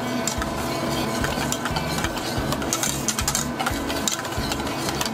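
Wire balloon whisk stirring a liquid chocolate custard mixture in a stainless steel bowl, the wires scraping and clicking rapidly and irregularly against the metal as the chocolate is blended in.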